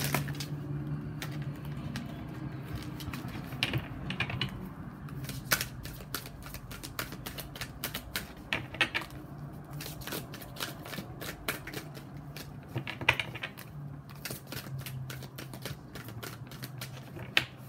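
Tarot cards being shuffled by hand: a long run of quick, irregular clicks and snaps as the cards slap and riffle against each other.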